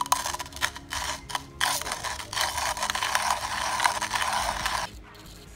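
Comandante C40 MK3 hand coffee grinder with Nitro Blade burrs grinding coffee beans one click from zero, its finest range, the burrs crunching the beans under heavy resistance. It starts as a few separate crank strokes, runs into steady grinding, and stops abruptly near the end.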